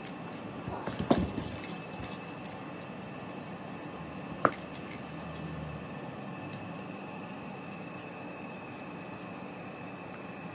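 Munchkin cats padding and shuffling about on a foam floor mat, with light taps and clicks. A louder cluster of thumps comes about a second in and a single sharp knock about four and a half seconds in, over a faint steady high-pitched hum.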